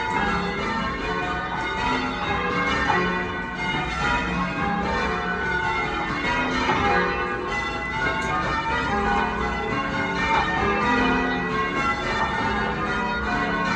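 Church tower bells change ringing: the bells strike one after another in an even, unbroken sequence, their tones overlapping.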